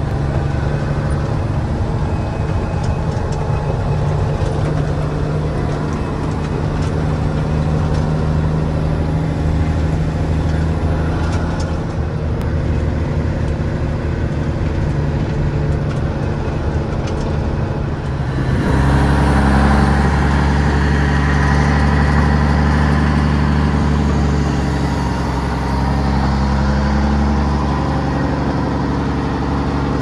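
Truck engine running as the truck drives, heard from inside the cab. About two-thirds of the way through, the sound changes suddenly to a louder engine with more hiss.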